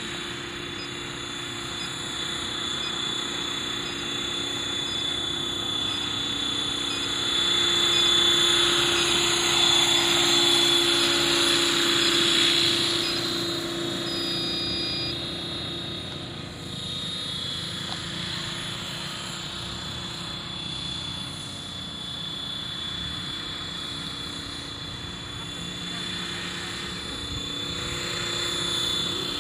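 Radio-controlled scale MD500 model helicopter in flight: the rotor hum and motor whine run steadily as it hovers low, growing louder for several seconds about a third of the way in.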